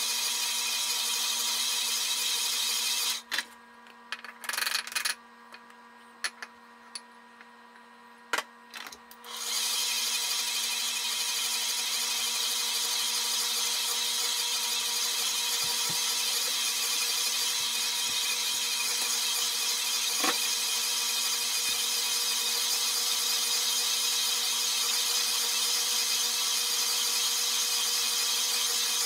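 KitchenAid bowl-lift stand mixer's motor and gearbox running steadily with a hum and whine while the dough hook kneads bread dough. A few seconds in, the sound drops away to a low hum for about six seconds, with a few clicks, then comes back at full level.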